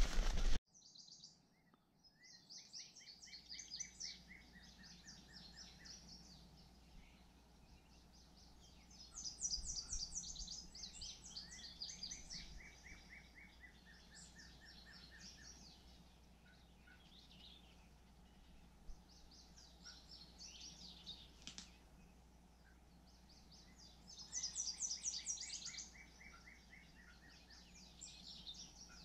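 Songbirds singing: short, rapid trilled phrases repeated every few seconds, with the loudest phrases coming twice, about a third of the way in and again near the end.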